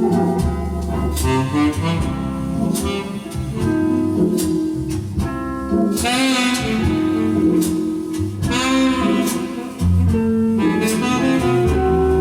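Music played from a record on a Philips AF 829 mark 2 turntable, with a lead melody over drum hits that keep a steady beat.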